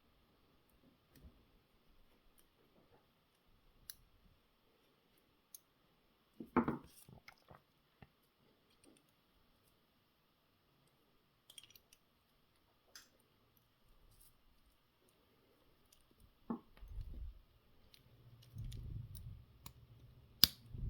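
Scattered small clicks and knocks of the parts of a car door lock cylinder being handled and fitted back together, with a louder knock about six and a half seconds in and low handling rumble and a sharp click near the end.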